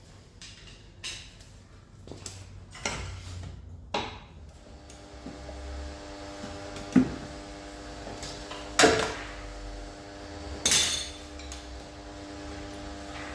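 Metal clanks and knocks of a pry bar working the loosened exhaust off its rubber hanger under a car, irregular, with two sharp loud strikes in the middle. A steady electrical hum comes in about five seconds in.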